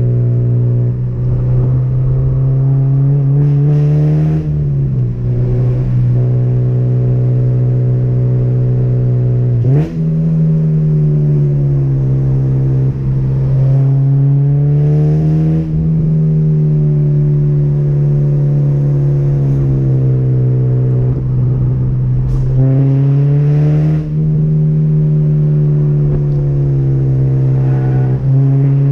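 2006 Honda Civic Si's 2.0-litre four-cylinder engine, fitted with a Skunk2 header, Megapower RR exhaust and cold air intake, pulling hard from inside the cabin. The revs climb steadily and fall back several times as the car works through bends. A sudden jump in revs comes about ten seconds in.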